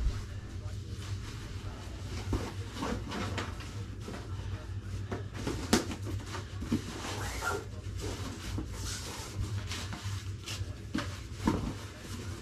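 Knocks and rustles of a cardboard box being handled and opened, as short scattered clunks over a steady low hum.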